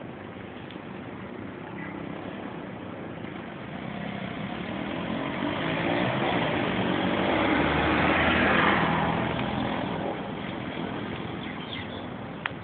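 A motor vehicle passing, heard from inside a car: road and engine noise that builds for a few seconds, peaks, then fades away. A small click near the end.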